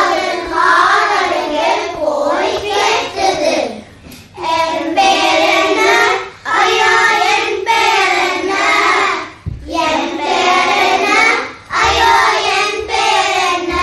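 Children singing a Tamil song in short phrases of a second or two, with brief breaks between them.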